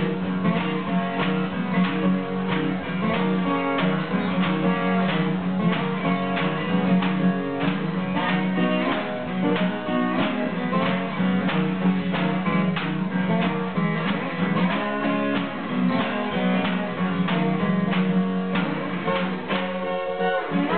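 Acoustic guitars playing a blues instrumental together, a strummed rhythm under a slide guitar lead; the slide's gliding notes stand out near the end.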